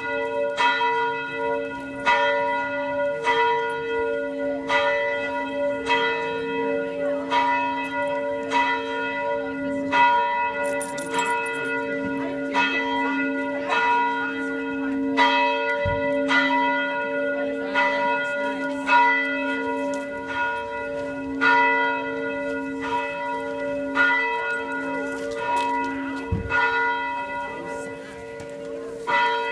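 A single church bell tolling at a steady pace, about one strike every 1.3 seconds, each stroke on the same note and ringing on into the next.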